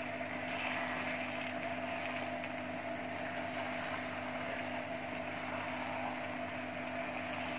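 Potato and round gourd curry sizzling in oil in a non-stick pan as it is stirred with a spatula, over a steady machine hum.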